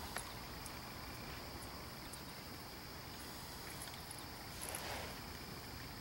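Quiet outdoor ambience: a faint steady high hiss, with a soft rustle about five seconds in.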